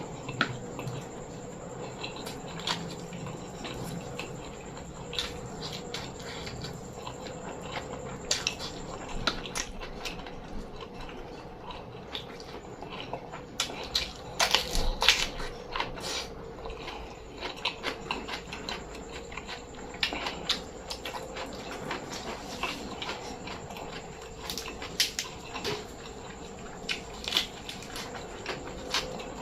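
Close-up eating sounds: chewing with mouth clicks and crunches, and occasional clinks of dishes or utensils. The sharpest and loudest crunches bunch together about halfway through, over a faint steady hum.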